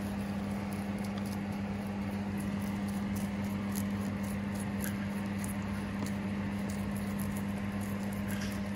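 Small pets nibbling fresh pak choi leaves: a faint, irregular patter of little crunching clicks over a steady low hum.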